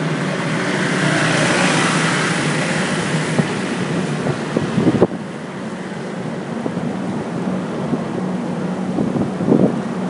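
A vehicle engine running steadily under a loud rushing noise of wind on the microphone; the rushing swells over the first few seconds and drops off sharply about five seconds in, leaving the engine's low hum.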